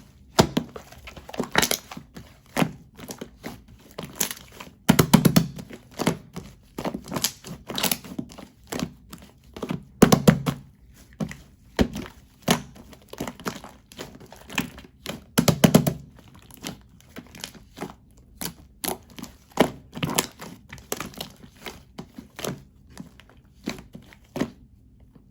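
Marbled slime being pressed and squished by hand, making a series of sharp clicks and pops. A few heavier squelches come about every five seconds.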